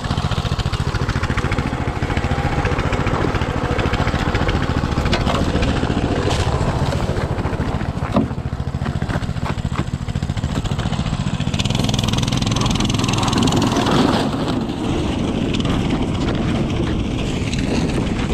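Mini bike's small engine running steadily as it tows sleds across a ridge of broken lake ice, with a few sharp knocks and a louder, rougher stretch a little past halfway as the sled crosses the ice heave.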